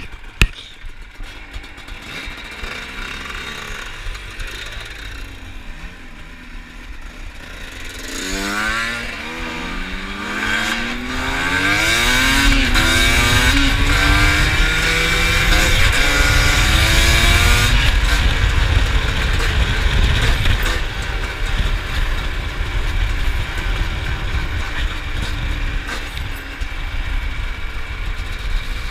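Two-stroke trail motorcycle engine running quietly at first, then pulling away hard and climbing up through the gears, its pitch rising and dropping back with each shift. A loud rushing noise comes in at the fastest part, and the engine then settles to a steadier run.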